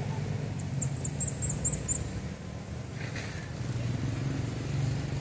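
Steady low hum of an engine running, as from a vehicle near the bank, with a quick run of about six high chirps about a second in.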